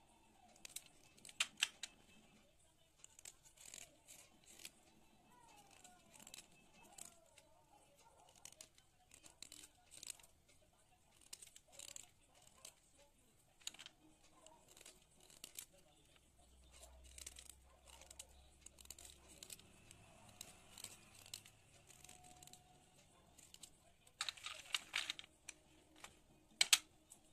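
Knife blade shaving and cutting sticks of white school chalk: irregular short, crisp scraping strokes, coming thicker about a second in and again near the end.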